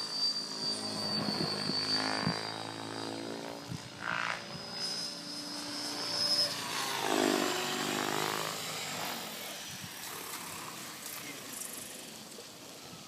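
Mikado Logo 800 electric RC helicopter flying 3D aerobatics: rotor blades and motor whining, their pitch shifting up and down as it manoeuvres. It grows quieter over the last few seconds as it comes down and lands.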